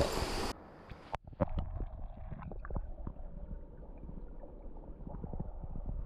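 A brief hiss of moving water cuts off about half a second in. Muffled underwater creek sound from a camera held below the surface follows: low rumbling and gurgling with scattered knocks.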